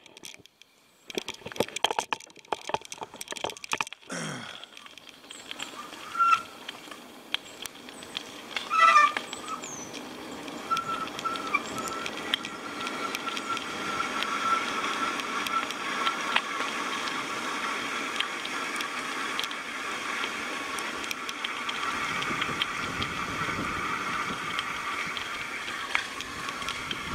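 A bicycle rolling along a wet paved road: steady tyre and riding noise that grows louder through the ride. Clicks and rattles come in the first few seconds, and a sharp louder sound comes about nine seconds in.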